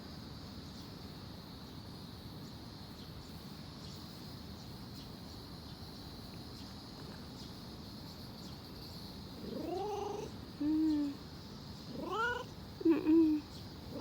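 A stray cat meowing four times in quick succession in the last few seconds, the calls rising and falling in pitch, over a steady faint hiss.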